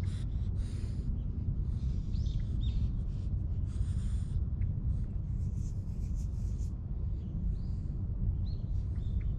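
Steady low rumble of wind on the action-camera microphone, with dry grass rustling and short bird chirps in the background.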